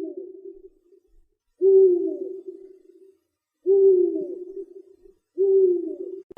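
An animal giving low hooting calls, four in a row about two seconds apart; each call opens with a short falling note and then holds a steady low tone for about a second.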